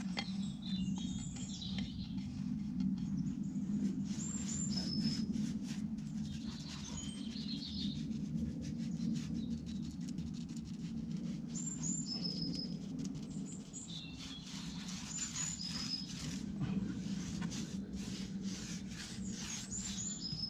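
Small birds chirping in short high calls and trills every few seconds, over a steady low hum. Faint soft scratches come from a small paintbrush dabbing paint onto a steel tractor wheel rim.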